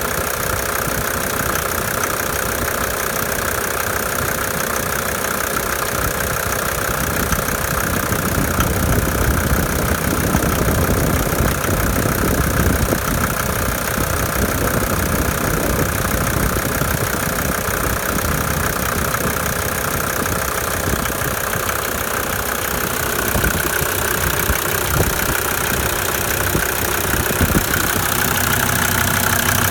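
Mercedes OM605 five-cylinder diesel idling roughly with an irregular knock: uneven running and clatter that new injector nozzles and original injection lines have not cured.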